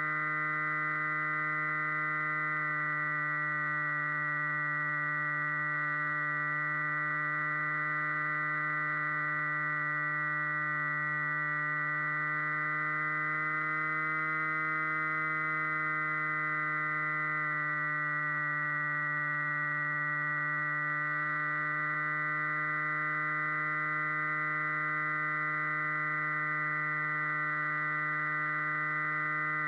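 Flying wing's motor and propeller running at steady throttle: a constant humming tone that rises slightly in pitch about halfway through and settles back.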